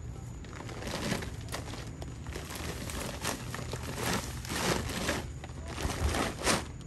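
Bags rustling and crinkling as they are handled, in a string of irregular short rustles, over a steady low hum.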